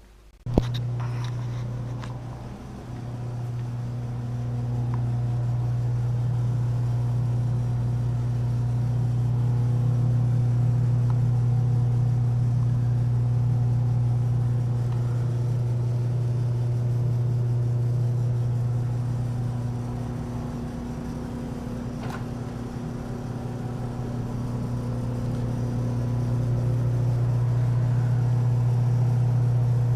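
A motor-driven machine switches on with a sudden click about half a second in and then runs with a steady low hum, swelling and dipping slightly in loudness.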